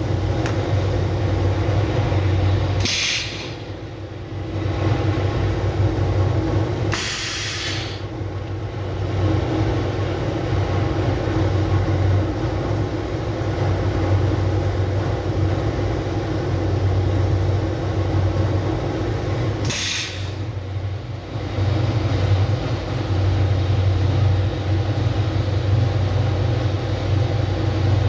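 High-frequency PVC welding machine humming steadily, with three short hisses of compressed air from its pneumatic press, the second one longest.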